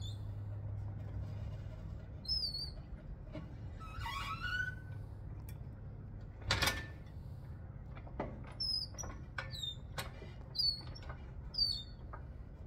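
Hydraulic floor jack being pumped to lift a planter row unit: high squeaks with light clicks on the strokes, scattered at first, then coming about every half second over the last few seconds. One louder clank about halfway through, over a steady low hum.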